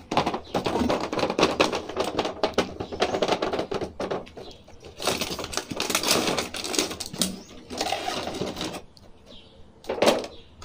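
Thin clear plastic blister packaging crackling and clicking as an action-figure set's tray is handled and pulled out of its cardboard box. Dense runs of crinkles and clicks, a short lull near the end, then one sharp click.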